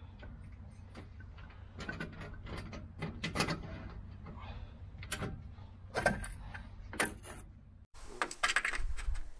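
Irregular metallic clicks, knocks and scrapes of a solar panel's aluminium frame being handled and fitted against its mounting rail and clamps, with a few louder knocks about six and seven seconds in.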